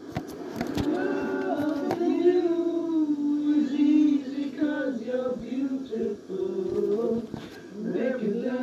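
Men's voices singing together in long held notes that slide in pitch, heard from a TV's speakers.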